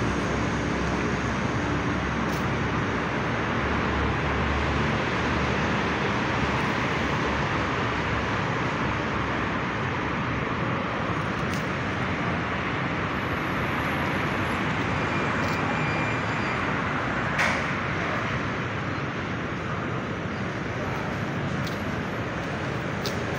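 Steady rushing outdoor background noise with no distinct events, plus one short tap about two-thirds of the way through.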